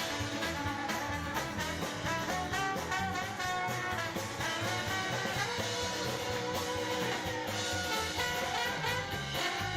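Live band playing an instrumental passage of an upbeat song, with no vocals.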